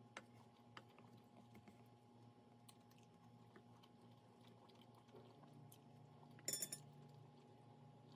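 Faint clicks of wooden chopsticks picking at a stainless steel bowl, with a brief louder clatter about six and a half seconds in, over a low steady hum of room tone.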